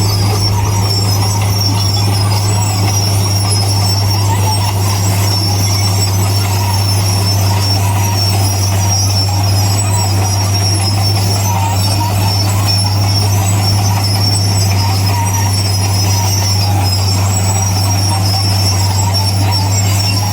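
Bulldozer at work: its diesel engine runs with a steady low drone, with a steady high squeal over it.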